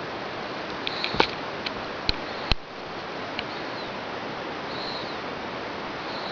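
A sleeping pet snoring softly, with a faint high whistle through the nose on each breath, about every second and a half, over a steady hiss. A handful of sharp clicks come between about one and two and a half seconds in.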